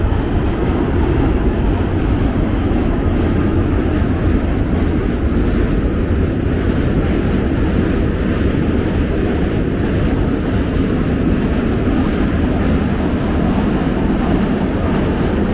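A subway train crossing the Manhattan Bridge: a loud, steady, low rumbling roar.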